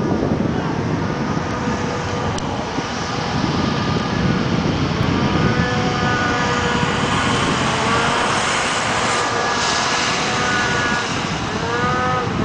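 Ski-Doo 800 two-stroke snowmobile engine running at high revs while it skims across open lake water, heard as a distant steady whine that bends in pitch near the end. Heavy wind rumble on the microphone is the loudest sound throughout.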